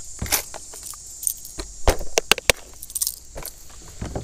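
Hard fishing lures clicking and clattering against each other and a clear plastic tackle box as someone rummages through its compartments. There are irregular sharp clicks, busiest around the middle.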